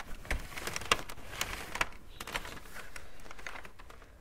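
Doodle Pro magnetic drawing board being erased and handled: the slider bar dragged along under the screen, giving a run of irregular clicks and scrapes that fade near the end.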